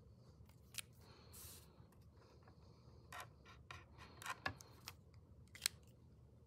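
A pen writing on a paper sheet in a few short scratchy strokes, with the paper sliding and being handled on a board and a few sharp clicks; all faint.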